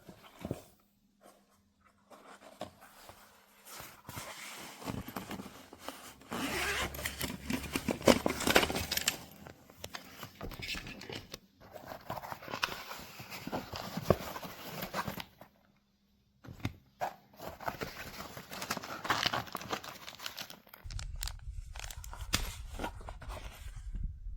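Irregular rustling and handling noises with scattered clicks, coming in uneven stretches with short pauses.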